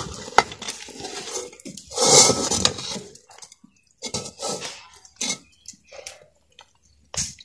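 Hot sugar syrup poured from a metal karahi into a metal pot of roasted gram flour and nuts, with a sharp metal clink just under half a second in and a louder rush about two seconds in. From about four seconds, a metal ladle stirring the mixture and scraping the pot in separate strokes.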